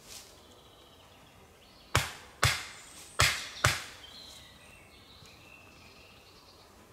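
Four sharp strikes in two quick pairs, each dying away briefly, typical of a tool hitting wood at camp. Faint bird chirps follow.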